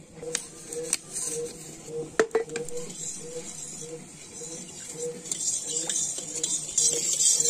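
A long metal ladle clinking and scraping against an aluminium karahi as oil is stirred, with several sharp clinks in the first few seconds. From about five seconds in, a steady high sizzling hiss comes from the oil frying in the pan.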